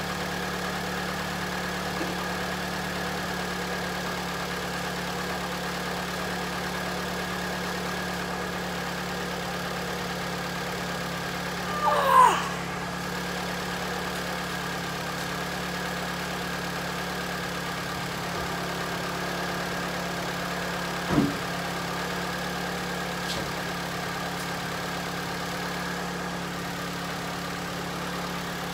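Car engine idling steadily after a jump start, charging a weak battery that is about two years old. About twelve seconds in there is a brief, louder squeak with a gliding pitch, and later a single short knock.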